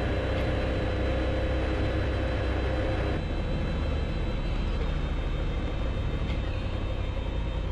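Motorcycle riding: the Honda Africa Twin 1100's parallel-twin engine running steadily under a constant rush of wind and road noise, the sound changing slightly about three seconds in.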